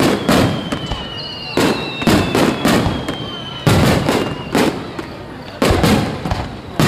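Aerial firework shells bursting overhead in quick runs of three or four bangs, each bang followed by a rolling echo. A faint high whistle slowly falls in pitch through the first few seconds.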